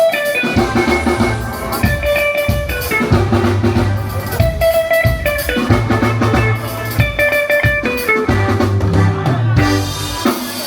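Live band playing an instrumental passage during a sound check: guitar chords over a drum kit and bass line.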